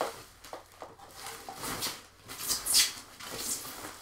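Plastic protective bag rustling and crinkling as it is pulled off a flat-screen monitor, in several swishes, the loudest just under three seconds in.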